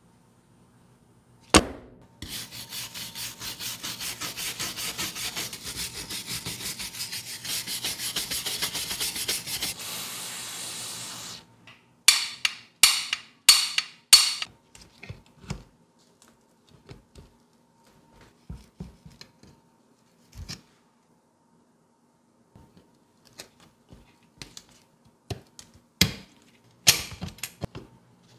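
Rusty steel sickle blade being worked by hand: a knock, then about nine seconds of quick, even rubbing strokes, then a few louder scraping strokes. After that come scattered light clicks and knocks.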